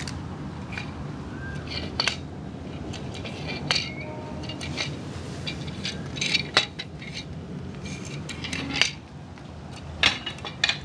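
Irregular sharp clicks and light clinks of small hard objects, a few strong taps among fainter ones, over a steady low hum.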